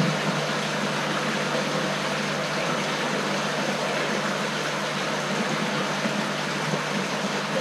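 Steady hum and rushing of a recirculating fish-farm system's pumps and circulating water, running evenly without change.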